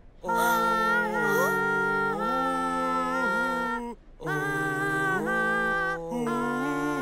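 Cartoon character voices singing or humming long held notes in harmony, with no instruments. The notes come in three sustained phrases separated by short breaks about four and six seconds in.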